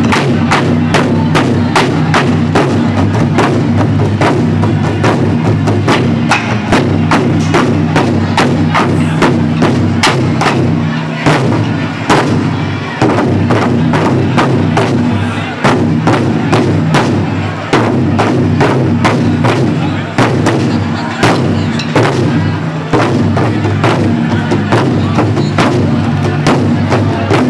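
Taiko ensemble of nagado-daiko barrel drums struck with bachi sticks in a fast, continuous, driving rhythm, loud and booming with deep low resonance.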